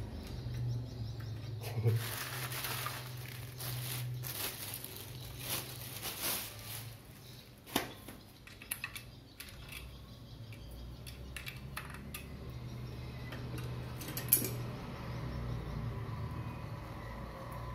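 Monitor stand parts being handled and fitted to the back of a Samsung S24R350FHE monitor: scattered clicks, knocks and rustling, with a sharp click about eight seconds in and a louder one near fourteen seconds, over a steady low hum.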